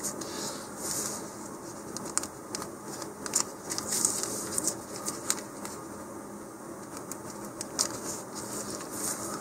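Thin plastic parachute sheet crinkling and rustling as it is handled, with many small sharp ticks as a pencil point is pushed through the plastic at the corner grippers.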